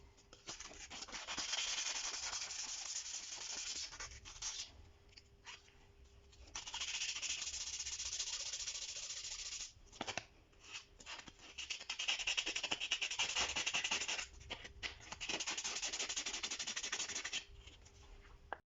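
A steel chisel rubbed back and forth on an abrasive by hand, a dry, hissy scraping in three spells separated by short pauses.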